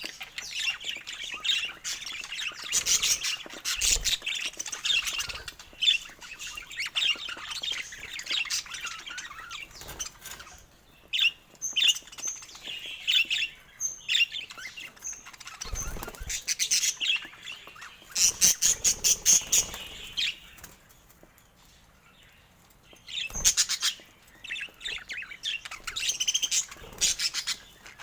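Budgerigars chattering with rapid warbles, chirps and squawks, with a few dull thumps in among them. The chatter drops away for about two seconds roughly three-quarters of the way through.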